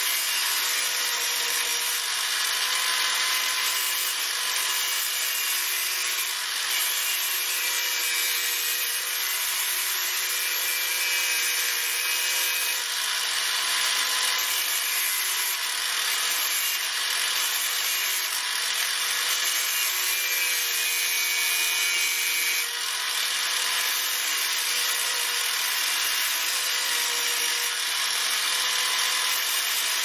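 Angle grinder running steadily, its abrasive disc grinding down a small steel lock washer clamped in a vise, to narrow it so it fits the recess in the bike's fork.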